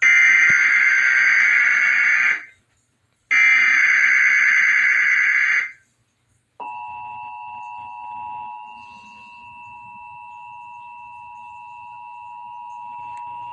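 Emergency Alert System tones: two buzzy bursts of SAME digital header data, each about two and a half seconds long with a short gap between. About six and a half seconds in, the steady two-tone EAS attention signal (853 and 960 Hz together) begins and holds, announcing a tornado warning alert.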